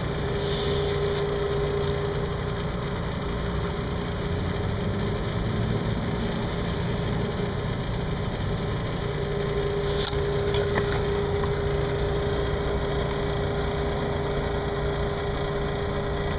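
A small motor running steadily with a constant hum, with a brief click about ten seconds in.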